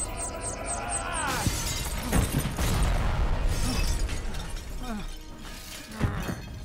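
A flying craft crashing through a glass roof: glass shattering and a run of crashes, with a sharp, loud impact about six seconds in, over background music.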